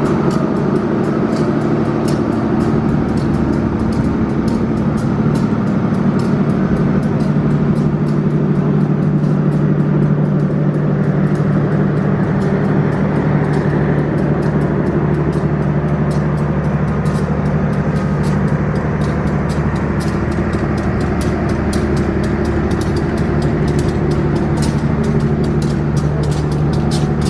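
Diesel-hauled passenger train shunting slowly past: the diesel engines of the CC 201 locomotive and the generator car hum steadily, while the wheels give frequent clicks over the rail joints and points.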